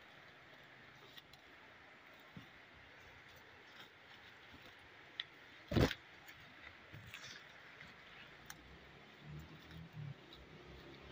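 Faint rustling and brushing of leaves and ferns from walking through forest undergrowth, with a few small clicks, one sharp knock about halfway through and some low thuds near the end.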